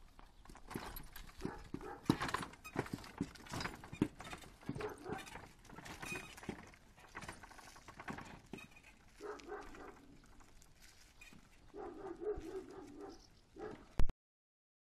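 A horse's hooves clip-clopping on a paved road as it pulls a wooden cart at a walk, in irregular sharp clicks. Two brief pitched sounds come about nine and twelve seconds in.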